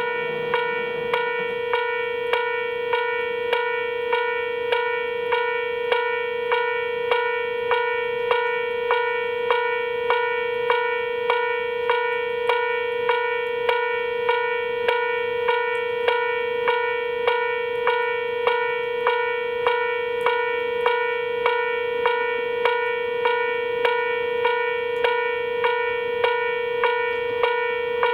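Japanese railway level-crossing warning bell ringing steadily: repeated electronic clanging strokes in an even rhythm over a sustained ringing tone, the signal that a train is approaching and the crossing is closed.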